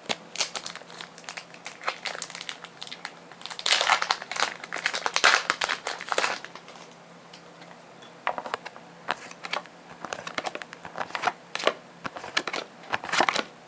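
Foil Pokémon booster pack wrapper crinkling and tearing while the pack is opened and the cards are handled. The crinkling is densest and loudest about four to six seconds in, then gives way to sparser rustles and clicks.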